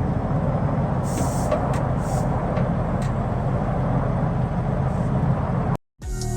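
Semi truck running with a steady low engine drone and road noise, with a few brief hisses. It cuts off suddenly near the end and music starts.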